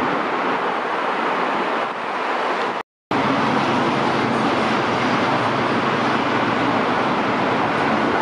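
Steady, even hiss of city traffic noise, with no distinct engine or train sound standing out. About three seconds in, the sound drops out completely for a moment at a cut, then resumes unchanged.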